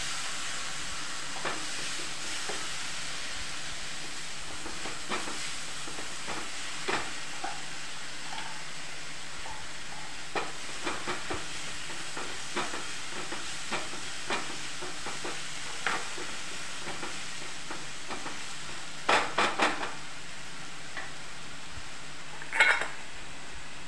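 Ginger-tomato paste sizzling steadily as it fries in a hot pan, with a spatula clicking and scraping against the grinder jar and the pan now and then. A few louder knocks near the end.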